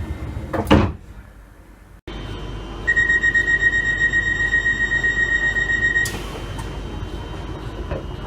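A train's sliding passenger doors closing with a loud thud under a second in. Then a steady high door-warning tone sounds for about three seconds over a low rumble.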